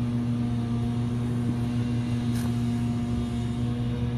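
A motor running steadily at one unchanging pitch: a constant machine drone.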